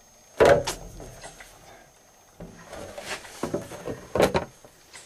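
A loud knock about half a second in, then a run of irregular clunks and clattering of hard objects being handled and rummaged through, with another sharp knock near the end.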